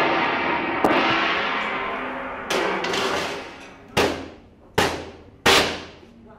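Large metal serving tray struck with the hand, ringing like a gong. It is struck about a second in and again halfway through, then three sharp strikes in quick succession near the end, each ringing out and fading.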